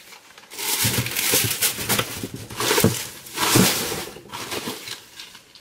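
Packaging rustling and crinkling as hands rummage through a subscription box, in several bursts over about four seconds before it dies down.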